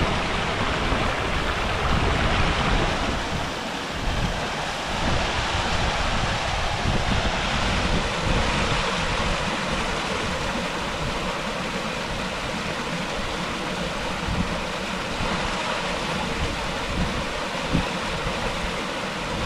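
Waterfall rushing steadily, with wind buffeting the microphone in a fluttering low rumble.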